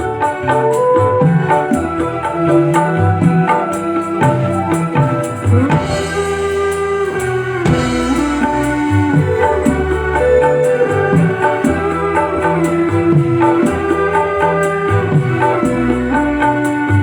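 Instrumental music: an electronic keyboard playing an organ-like melody over a bass line and drums.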